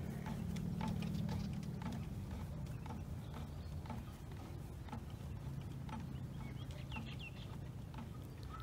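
Footsteps on grass at about two steps a second, over a low steady rumble that is heaviest in the first couple of seconds. A short chirp is heard about seven seconds in.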